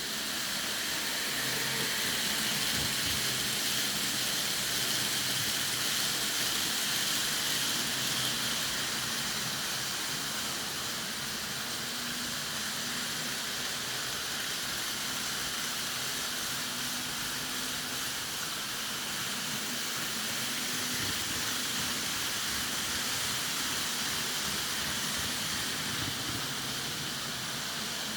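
A French train running: a steady rushing hiss with no clear beats, clanks or horn, holding level throughout.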